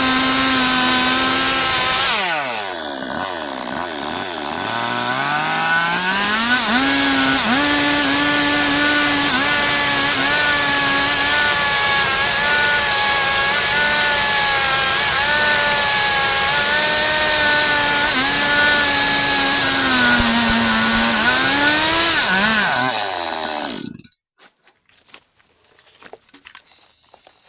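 Stihl MS 382 two-stroke chainsaw running at high revs while cutting a log lengthwise into boards. The revs drop sharply about two seconds in, climb back and hold steady through the long cut, then waver, and the saw cuts off suddenly about 24 seconds in. Faint crackles follow.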